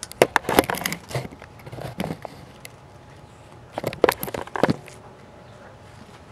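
Handling noise from the camera being moved and set down: a flurry of knocks, clicks and rustling in the first second, another near 2 s, and a second flurry about four seconds in as it comes to rest.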